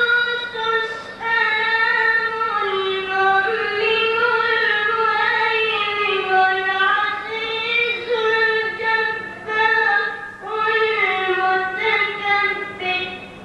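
A boy reciting the Quran in the melodic tajweed style, holding long, wavering notes with a few short breaks for breath, the voice trailing off just before the end. A steady low hum runs underneath.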